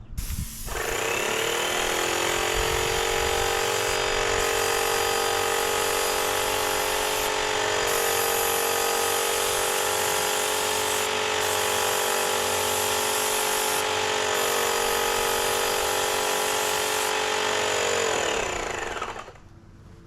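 Graco Magnum X7 airless paint sprayer's electric motor and piston pump spinning up, running at a steady pitch for about seventeen seconds, then winding down near the end.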